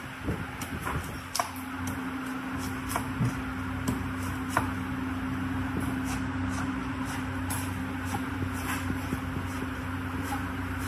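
Cleaver blade cutting and shaving the husk of a young coconut on a wooden chopping block, with irregular sharp knocks every second or so. A steady machine hum runs underneath.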